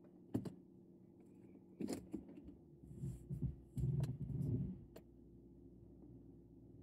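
Low, steady engine hum heard from inside a car's cabin as it pulls away, with a few sharp clicks and rattles. There is a stretch of low rumbling bumps around three to five seconds in.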